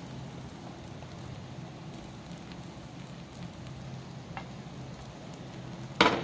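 Bread pizzas sizzling faintly and steadily on a flat tawa griddle over a low gas flame. A sharp clatter of cookware comes near the end.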